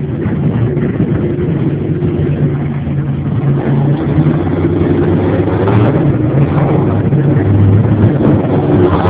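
Jet boat engine running steadily, its pitch wavering slightly, getting a little louder from about halfway through.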